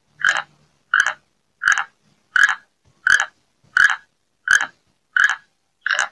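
An animal calling in a steady series of short, evenly spaced calls, about three every two seconds, nine in all.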